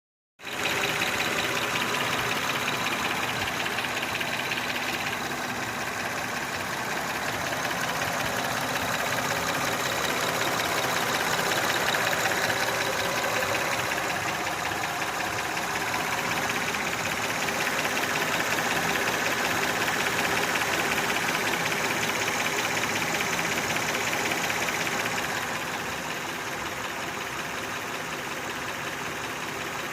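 Honda Odyssey engine running with a loud, rapid knocking. The owner suspects the valves and plans to try adjusting them.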